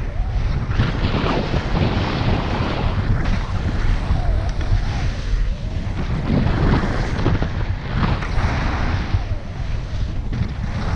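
Wind buffeting the microphone of a skier's wide-angle camera during a descent, with skis scraping over firm, hard-packed snow in the turns.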